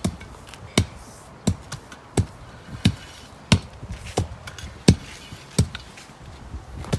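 A hand tool striking the soil again and again in a steady rhythm, about one blow every 0.7 s, as the ground is chopped and tamped for levelling.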